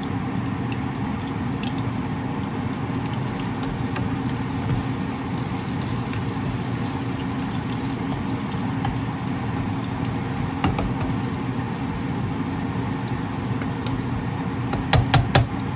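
Sliced onions frying in oil in a nonstick pan: a steady sizzle with small crackles. A spatula stirs them and knocks against the pan three or four times near the end.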